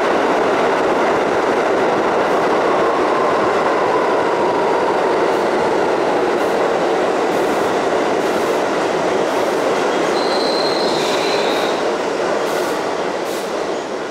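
New York City subway train, heard from inside the car, rolling into a station and braking: a steady loud rumble of wheels on rail, with a brief high squeal a little over ten seconds in. The noise dies down near the end as the train slows.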